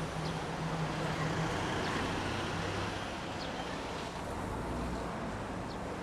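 Steady urban road traffic noise, with a low engine hum that fades out about a second and a half in.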